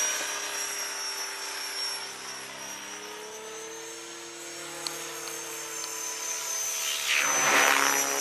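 Align T-Rex 600 radio-controlled helicopter flying overhead: a steady high whine over a lower rotor-and-motor hum that drifts slightly in pitch. A louder rushing surge comes about seven seconds in.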